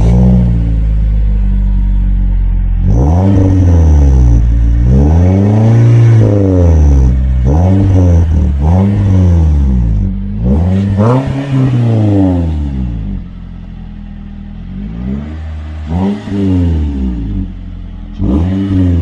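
2015 Toyota Corolla S's 1.8-litre four-cylinder engine running through a TRD sport exhaust: it idles, then is revved again and again, the exhaust note rising and falling with each blip. About two-thirds of the way in it turns quieter, with a few more short revs near the end.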